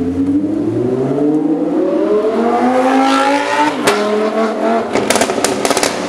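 Lamborghini Huracán LP610-4's naturally aspirated V10, fitted with a valved catback exhaust, accelerating hard as it passes: the revs climb steadily for nearly four seconds, and then there is a sharp crack. The pitch drops at the crack as it shifts up, and the revs climb again. Near the end comes a rapid string of exhaust crackles and pops.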